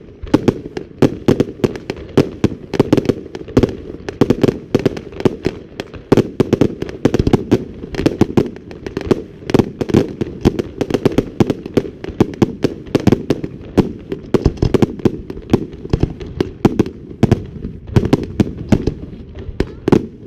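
Fireworks display: aerial shells bursting in a dense, continuous barrage, several sharp bangs a second with no pause.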